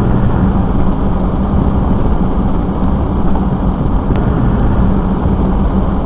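Vehicle engine running steadily: a low hum under dense noise, the hum strongest at the start and again near the end.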